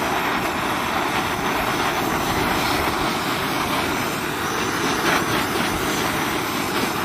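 Bernzomatic hand torch burning with a steady rushing flame that starts abruptly, heating the end of a polyethylene well pipe to soften it for a barbed fitting.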